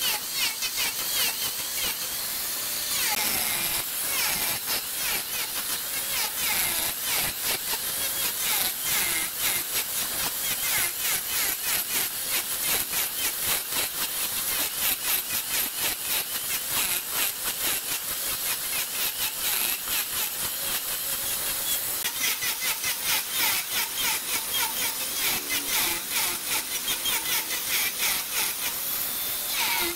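Large wood lathe spinning a redwood blank while a turning tool cuts into it, a steady rough cutting noise with a fast, even chatter.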